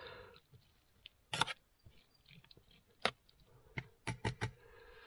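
Sharp clicks and short scrapes from a pan of menemen cooking over a wood fire: one about a second and a half in, another around three seconds, then a quick run of three near the end.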